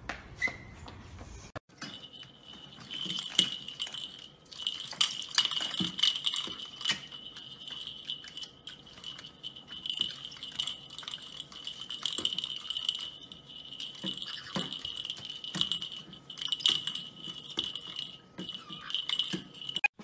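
A plastic ball toy rattling and clicking in quick irregular bursts as caique parrots knock it about, over a thin, steady high-pitched tone.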